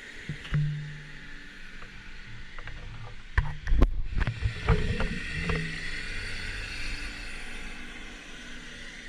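Excavator engine running steadily, with a cluster of loud cracks and knocks about three and a half seconds in, followed by a rumbling crackle that dies away over the next few seconds.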